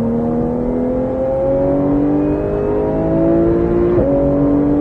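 Porsche 991 GT3's naturally aspirated flat-six accelerating hard, its pitch climbing steadily. About four seconds in there is an upshift, and the pitch drops before it climbs again.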